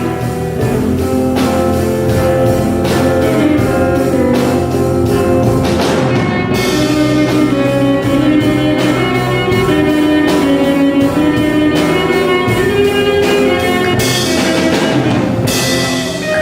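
A band playing music with guitar and drums, the drums keeping a steady beat under held guitar notes.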